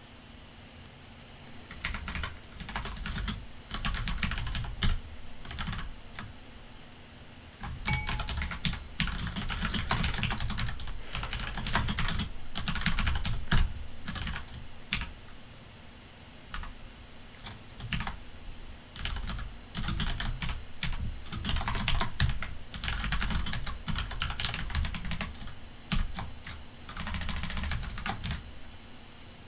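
Typing on a computer keyboard in quick runs of keystrokes, with pauses of a second or two between them.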